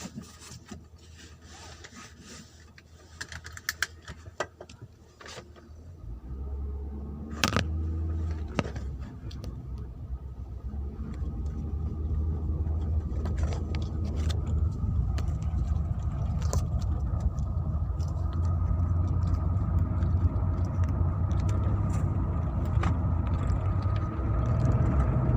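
Light clicks and rattles, then a car engine starts about six seconds in and keeps running at a steady idle, growing louder over the next few seconds.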